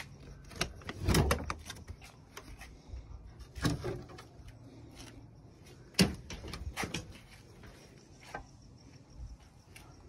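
Entry door of a 1981 GMC Vandura camper van being unlatched and swung open: a series of latch clicks and knocks from the door and its metal frame, the sharpest clack about six seconds in.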